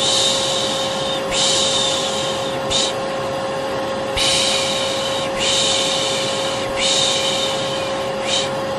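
Vacuum cleaner running with a steady hum, under a repeated human 'shh' shushing: two long shushes and a short one, a pause, then the same pattern again. It is a white-noise lull for settling a baby to sleep.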